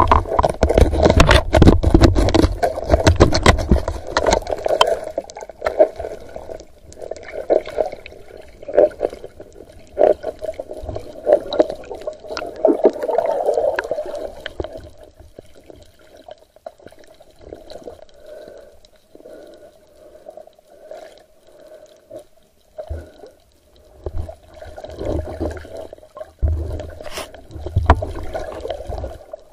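Muffled water sloshing and gurgling heard through a camera underwater, with a steady hum throughout. Dense knocking and scraping come in the first few seconds, then quieten, and return as a few louder knocks near the end.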